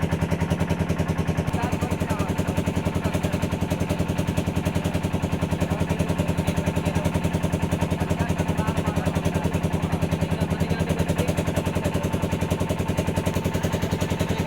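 A small engine running steadily at constant speed, with a fast, even thumping beat that does not change.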